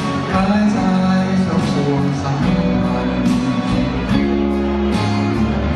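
Live band playing a song, with electric or acoustic guitar over bass and drums, and cymbal hits every second or so.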